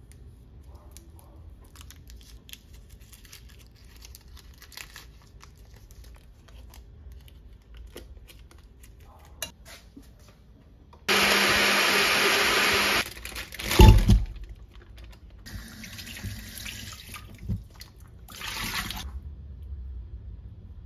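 Faint crinkling of a foil wrapper being peeled open, then a kitchen tap running into a stainless steel sink while raw chicken is rinsed in a metal bowl. The tap comes on loud and steady for about two seconds and cuts off, a loud thud follows, then the water runs twice more, more quietly.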